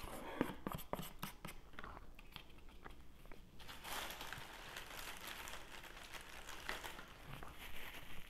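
Plastic takeout bag rustling and crinkling for a few seconds as a hand rummages in it. This follows a run of light clicks and taps at the start, as a sauce cup is handled over a plastic salad container.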